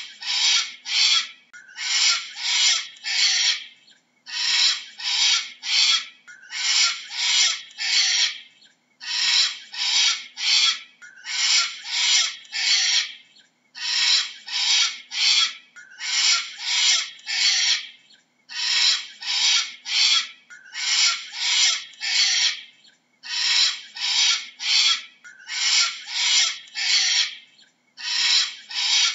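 Cockatoo screeching: harsh, raspy calls in quick runs of three or four, a run about every two seconds.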